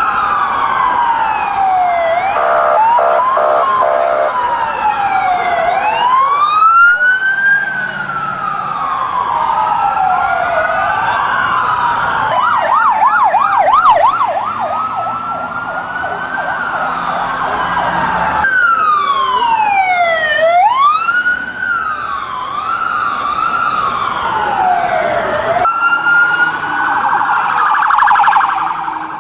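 Several emergency-vehicle sirens wailing at once, their rising and falling sweeps overlapping. About halfway in, one siren switches to a fast yelp as an ambulance passes close by.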